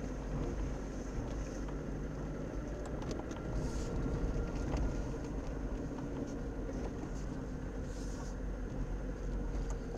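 Car driving slowly over a wet, potholed road, heard from inside the cabin through a dashcam microphone: a steady low engine and road drone with a few light knocks, and two brief hisses of tyres through puddles, a little under four seconds in and again about eight seconds in.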